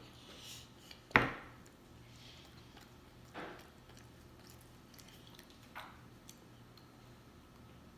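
Quiet sounds of a child eating spaghetti, with one sharp knock about a second in and a couple of softer short noises later.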